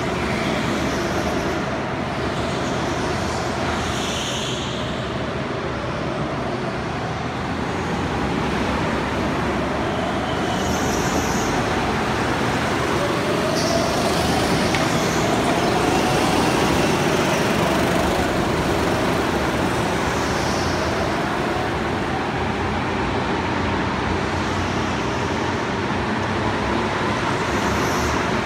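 Several go-karts running laps on an indoor track, the pitch of their motors rising and falling as they speed up and pass.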